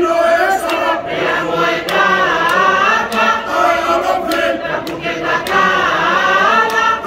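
Large Tongan choir of women and men singing together, their sustained notes bending up and down in pitch.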